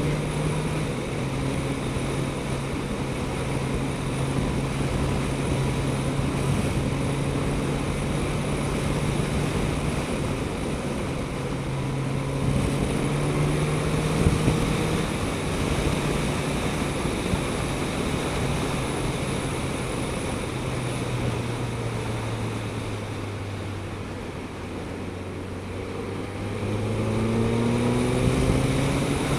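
Suzuki GSX-S1000GT's inline-four engine running steadily at cruising revs under a constant rush of wind and road noise. The revs sag a little past the middle, then climb again near the end as the bike accelerates.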